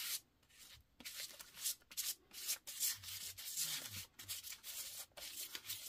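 Palette knife scraping acrylic paint across paper in short repeated strokes, a few a second, starting about a second in.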